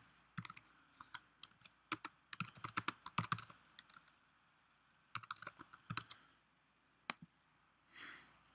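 Typing on a computer keyboard: a quick run of keystrokes through the first four seconds, a pause, another short burst about five seconds in, then a single click near seven seconds. A brief soft hiss follows near the end.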